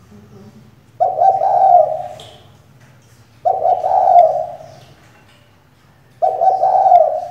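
Female spotted dove cooing: three calls about two and a half seconds apart, each starting abruptly and lasting about a second.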